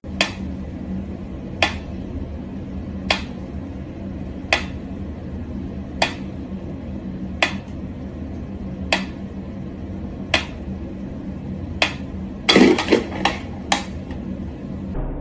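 Mechanical pyramid metronome ticking slowly, one tick about every second and a half, over a steady low hum. Near the end, a short flurry of louder, quicker knocks and scrabbling breaks in.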